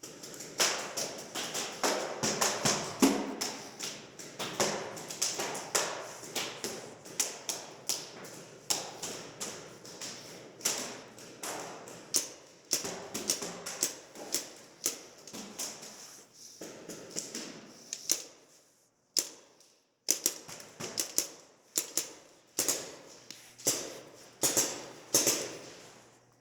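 Two paintball pistols, a Tiberius Arms T8.1 and a Tippmann TiPX, firing shot after shot: many sharp pops, coming quickly in the first half, then a short pause about two-thirds of the way through and single shots about once a second.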